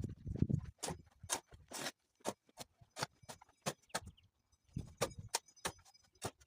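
Irregular sharp knocks and clinks of hand tools working concrete, about two or three a second, some with a brief metallic ring, with a few dull thuds at the start.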